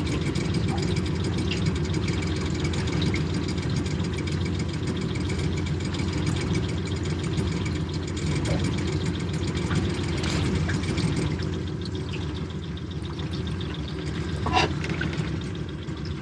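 A boat motor running steadily at low speed: an even, low drone that eases slightly in the second half, with a couple of faint clicks.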